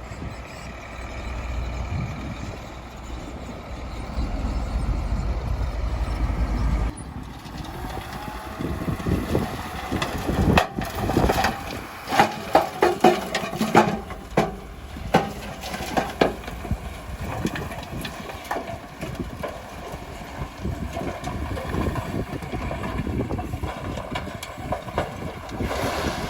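Heavy diesel earthmoving machinery running with a deep rumble. The sound changes abruptly about seven seconds in, and a run of sharp knocks and clanks follows in the middle.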